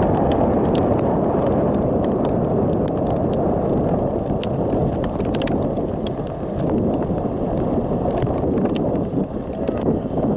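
Wind buffeting the camera microphone in a loud, steady rumble, with scattered sharp ticks of raindrops striking the camera.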